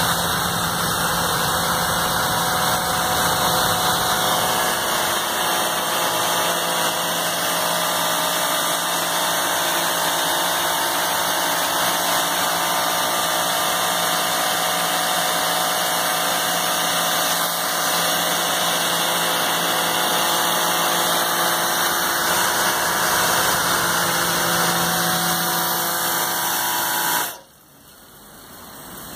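High-pressure washer running steadily, a motor hum under a loud hiss, then cutting off suddenly near the end.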